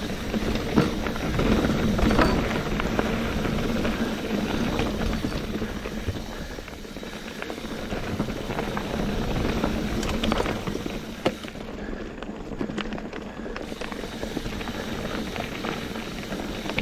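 NS Eccentric Chromo mountain bike rolling along a packed-gravel trail: a steady rush of tyre noise over the gravel, with frequent clicks and knocks from the bike rattling over the stones.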